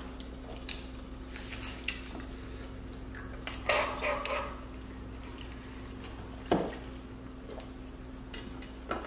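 Quiet handling of food packaging: a small sauce packet being torn and peeled open, with scattered soft clicks and a short rustle about three and a half seconds in, over a faint steady hum.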